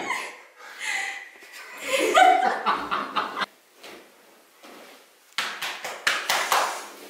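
Short bursts of human vocal sounds without words, one voice-like burst in the middle and breathy, noisy bursts near the end, with quiet stretches between.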